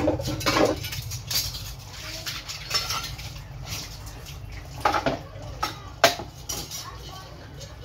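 Metal utensils clinking and knocking against each other and the floor as dishes are washed: irregular sharp knocks, the loudest about five and six seconds in.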